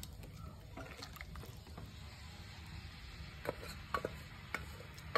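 Wooden spatula stirring a thick curry in a steel pressure cooker pot, with a few light knocks against the pot in the second half over a low steady hum.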